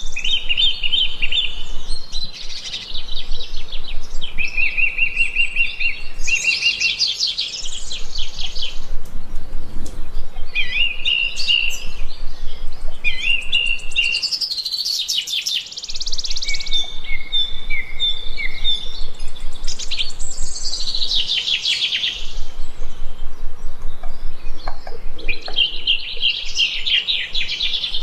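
Wild songbirds singing: high, fast trills and chirping phrases, each a second or two long, following one another with short gaps.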